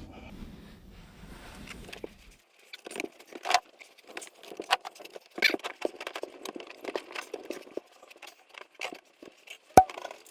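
Irregular knocks, taps and rustling as a person moves about in a ceiling void, handling and laying mineral wool insulation between the rafters. One sharp, loud click comes near the end.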